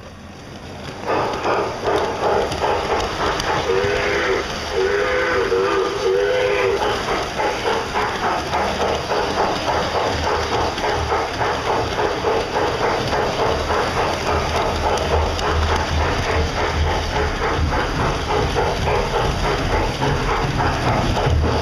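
Steam locomotive sounds: steady rhythmic chuffing and hiss coming in about a second in, with three short whistle blasts about a second apart a few seconds later, and a low rumble building toward the end.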